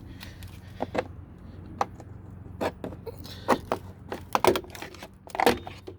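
Plastic interior trim being pried off a 2002 Chevy Suburban, with a series of sharp, irregularly spaced clicks and knocks as its retaining clips pop loose.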